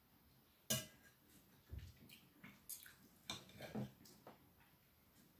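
Fork and knife clinking and scraping against a plate while cutting a piece of ensaymada: one sharp clink about a second in is the loudest, then a string of lighter clinks.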